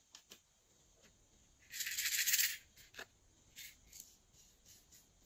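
Small hard decorations being handled: a few light clicks, and about two seconds in a brief hissy rattle lasting just under a second, then more soft clicks as a piece is picked up.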